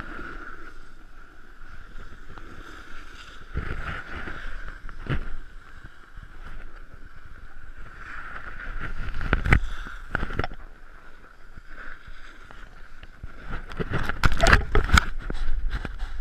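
Wind rushing over an action camera's microphone while snowboarding down a groomed piste, with the board scraping over packed snow and a steady whistling tone. Louder knocks and scrapes over bumps come about four and five seconds in, around nine seconds, and in a cluster near the end.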